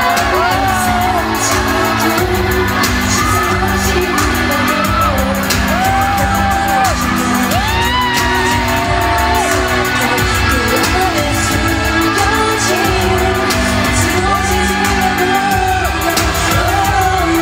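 Female pop singer singing live into a handheld microphone over backing music, with long held notes, amplified through an arena sound system and recorded from the audience.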